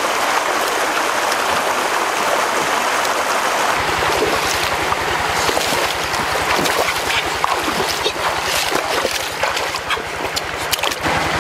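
Stream water running over rocks, with splashing and sloshing as a person wades through the shallows and turns over stones underwater. A low, steady pulsing hum joins about four seconds in.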